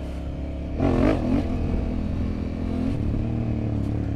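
Honda Africa Twin's parallel-twin engine running, revving up briefly about a second in with the pitch rising and falling, then pulling steadily.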